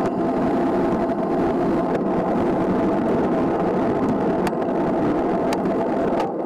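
Steady wind and road noise from riding a road bike, heard on a camera mounted low on the bike: air rushing over the microphone and tyres rolling on asphalt, with a faint steady hum and a few light clicks.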